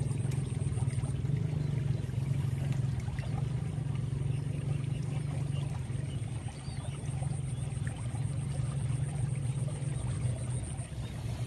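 Muddy irrigation-canal water rushing past the bank in a steady, even rush.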